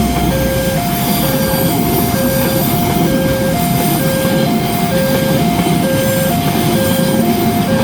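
Electronic railway level-crossing siren sounding its two-tone warning, a high and a low tone alternating about once a second, over the rumble of a train passing the crossing.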